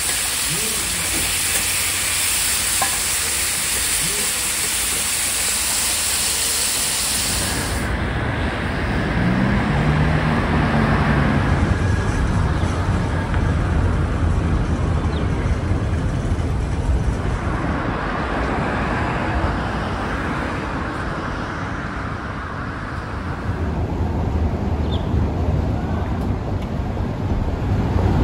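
Offal and meat sizzling on a hot iron teppan griddle, a steady hiss that cuts off about eight seconds in. After that comes steady street ambience: a low traffic rumble and wind noise.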